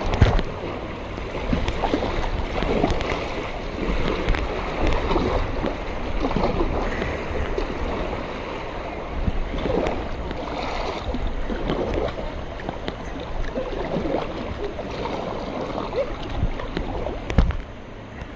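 Kayak paddle strokes dipping and splashing, with the river's moving water rushing and gurgling around a whitewater kayak's hull. The splashes come irregularly, every second or two.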